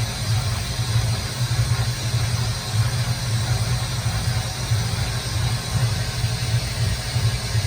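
CNC milling machine running through a carbide drilling cycle in aluminium: a steady low machine hum that wavers quickly in level, over a constant hiss.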